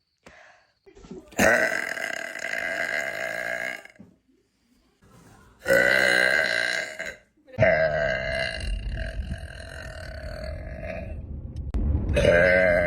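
A young woman letting out a series of long, loud burps with short breaks between them, three or four in a row, the last one growing louder near the end.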